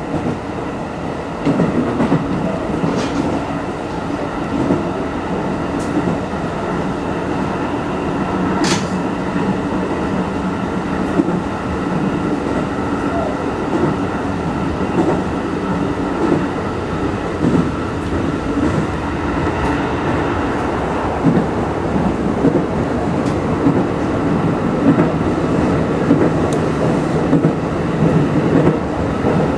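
Aonami Line electric commuter train running at speed, heard from behind the driver's cab: a steady rumble of wheels on rail with a faint steady whine and a few sharp clicks.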